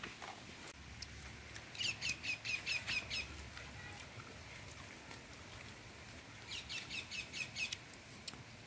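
A bird calling in two quick runs of sharp, high repeated notes, about five a second, the first about two seconds in and the second about six and a half seconds in.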